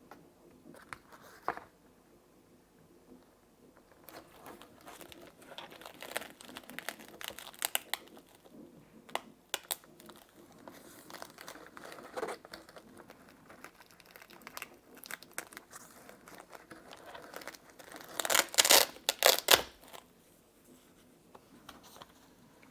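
Hands handling small tools and plastic at a workbench: crinkling, rustling and scattered small clicks, starting a few seconds in, with the loudest burst of rustling about eighteen to twenty seconds in.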